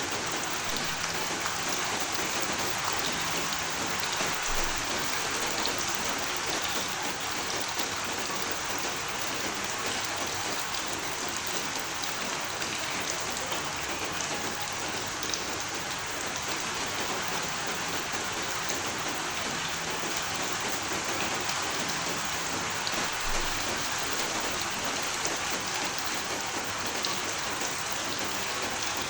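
Steady rain falling: a dense, even hiss with scattered small drop ticks.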